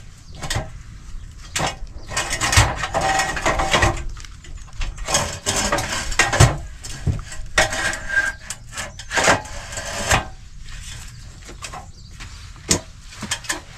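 Aluminium ladder being taken down and moved about inside a wooden cubicle: a series of knocks and clatter, with stretches of scraping against the timber.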